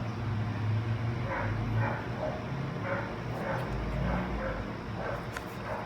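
A dog barking repeatedly, a short bark about every half second, over a steady low hum.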